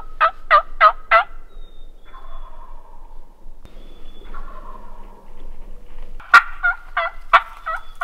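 Turkey calling: a quick run of sharp yelps, each note falling in pitch, then softer drawn-out falling notes, then another run of sharp yelps about six seconds in.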